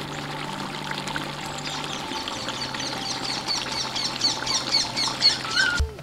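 Wet trickling and stirring sounds in a large aluminium cooking pot as lemon juice dribbles in and chicken in masala is turned with a ladle. A bird chirps in quick repeated notes in the background through the middle and later part.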